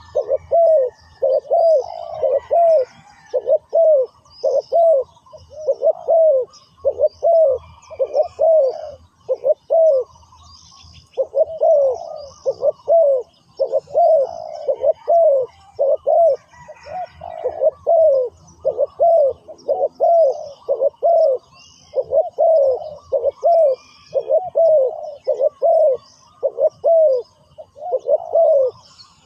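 Spotted dove cooing over and over in a long series of arching coos, with a short break about ten seconds in. It is a decoy calling to lure wild doves in. Small birds chirp faintly in the background.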